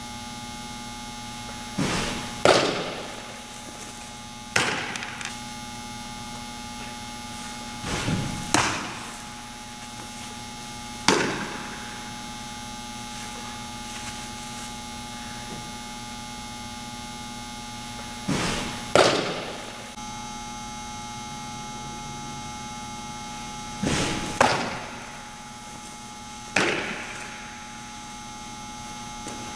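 A softball smacking into leather gloves: about seven sharp pops, each with a short echo off the walls of a large indoor room, four of them preceded by a softer thud about half a second earlier. A steady electrical hum runs underneath.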